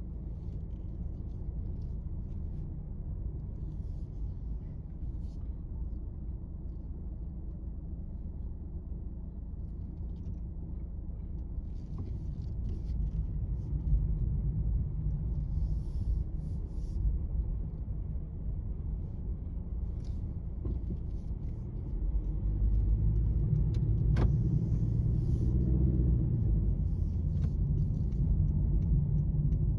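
Low, continuous rumble of road traffic, swelling louder about halfway through and again for the last third, with faint scattered ticks above it.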